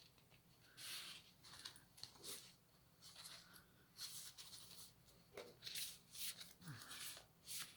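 Faint, intermittent rustling of paper and card: journal pages being turned and card tags slid in and out of their pockets.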